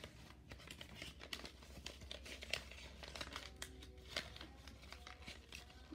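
A folded sheet of paper crinkling and rustling in faint, scattered crackles as it is handled and one flap is tucked inside another.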